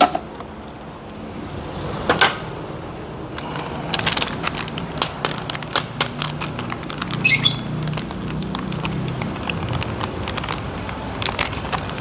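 Light clicks, taps and a short rustle of packaging from hands handling a coffee canister and a coffee sachet, with one sharper click about two seconds in, over a steady low hum.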